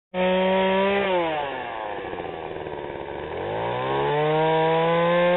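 Two-stroke chainsaw engine running at high speed, throttled back to idle about a second in, then revved up again a little after three seconds and held steady at high speed.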